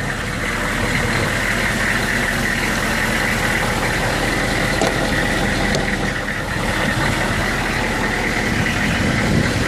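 AM General Humvee H1's 6.5-litre V8 diesel idling steadily while it warms up after a cold start, with a steady high whine over the engine sound.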